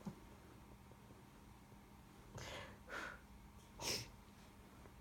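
A quiet room with three faint breathy puffs through the nose, a person snorting or stifling a laugh, a little over halfway through.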